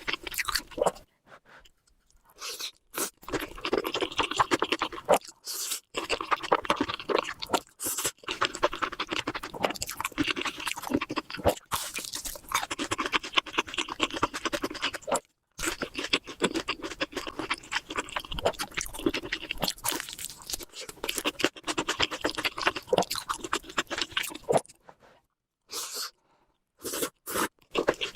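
Close-miked eating sounds: chewing and crunching of food with wet mouth clicks, broken several times by brief spells of dead silence.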